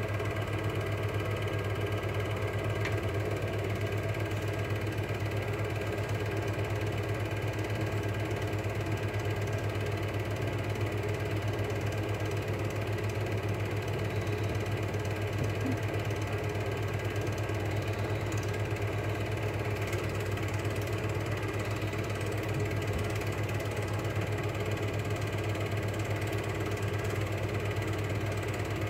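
Cine film projector running: a steady whirr and fast, even clatter from the film-advance mechanism over a low motor hum.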